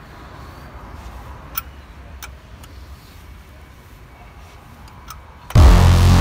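A few faint sharp metallic clicks as a socket wrench works on a car's wheel bolt. Loud electronic music with a heavy bass cuts in suddenly near the end.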